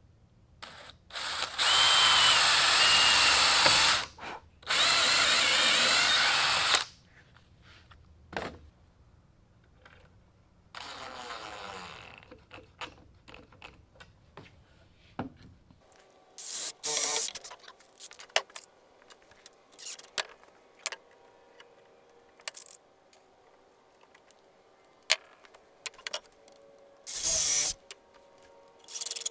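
DeWalt cordless drill running into wood in two runs of a few seconds each, starting about a second in, then several short bursts later on as screws are driven home, with scattered clicks and knocks of handling between.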